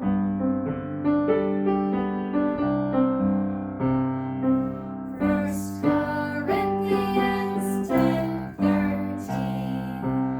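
Piano playing a simple children's song accompaniment, with singing voices joining about halfway through to set the Bible memory verse to music.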